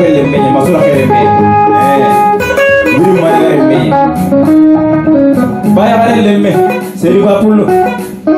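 Electric guitar picking a flowing melody of single notes, with a man singing into a microphone over it.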